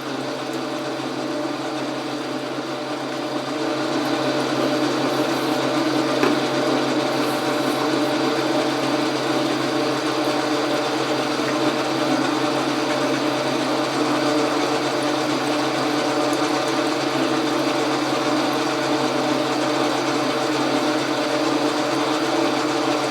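Logan metal lathe running steadily, its gear train and drive making a continuous mechanical whir with a rattle, a little louder from about three to four seconds in.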